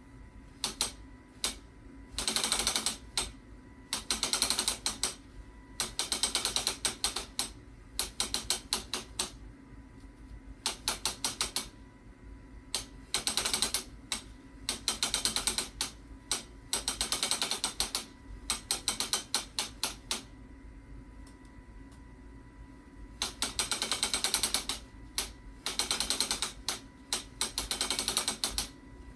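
Wooden sectional loom's back beam being turned by hand, its ratchet and pawl clicking in quick runs of one to two seconds with short pauses between, as warp is wound onto the beam.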